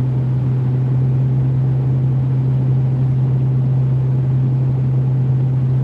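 Steady drone inside a Dodge Dakota pickup's cab at highway speed: engine and road noise with a strong, even hum.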